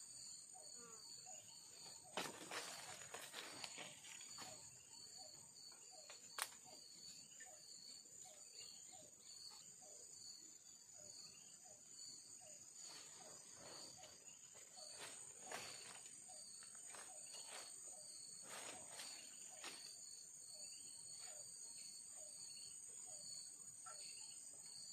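Faint chorus of forest insects, a steady high shrill with a pulsing chirp about twice a second, and soft short calls repeating lower down. A few brief rustles and knocks break in, the sharpest about six seconds in.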